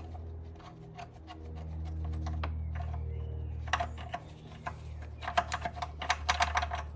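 Ratchet with a 10 mm socket clicking as it undoes the long bolt that holds a car battery in place. The clicks come in irregular runs at first and turn rapid and steady over the last couple of seconds.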